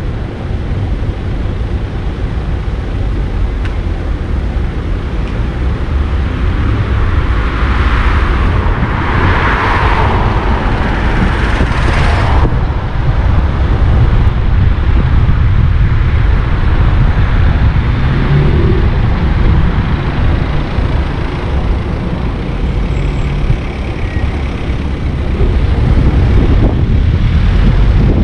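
Car driving through town streets: a steady low rumble of engine, tyres and wind. A rushing noise swells from about eight seconds in and cuts off suddenly about twelve seconds in.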